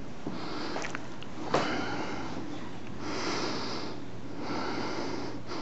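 A person breathing through the nose close to the microphone, in steady, regular breaths, with a single sharp click about one and a half seconds in.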